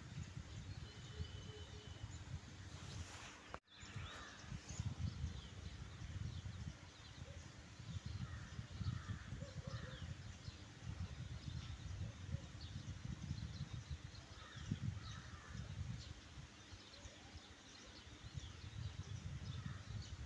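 Low, uneven rumbling background noise with faint bird chirps over it, cutting out for a moment about three and a half seconds in.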